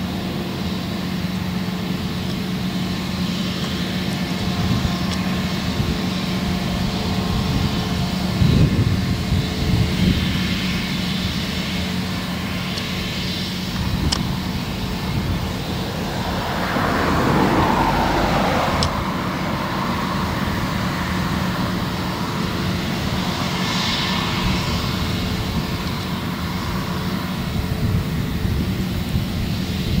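Claas Lexion 7400 combine harvester working in barley, its engine and threshing machinery giving a steady drone, with a Claas Arion 640 tractor running alongside as grain is unloaded into its trailer. A rushing swell of noise rises and falls a little past halfway.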